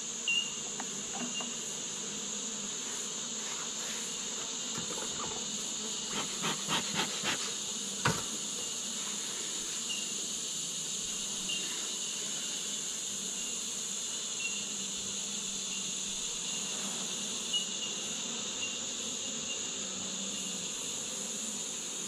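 Insects around an open honeybee hive: a steady high-pitched chirring with the bees' buzzing beneath it. A short run of sharp wooden clicks and a knock comes about six to eight seconds in as hive frames are handled.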